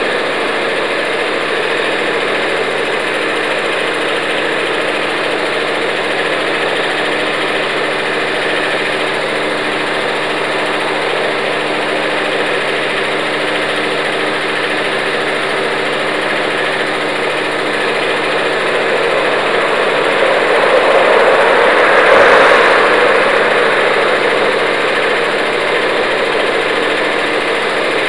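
A motor engine running steadily, swelling louder about two-thirds of the way in and then easing back.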